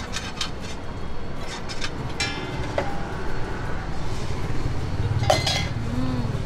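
Scattered clinks and clatter of metal utensils and dishes at a street food stall, with a few short ringing tones. A low vehicle engine rumble comes in near the end.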